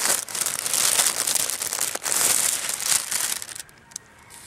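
Plastic packaging crinkling and rustling as a new laptop screen is handled and unwrapped; it stops about three and a half seconds in.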